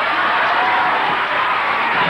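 Audience cheering and applauding, a steady dense crowd noise.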